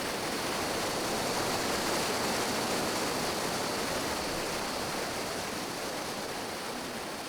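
Steady rush of a mountain stream's cascades and small waterfalls, slowly fading over the last few seconds.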